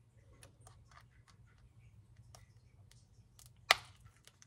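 Key-opened tin of luncheon meat being wound open: faint metal ticks and creaks as the twist-key rolls up the tin's scored strip, with one sharp click near the end.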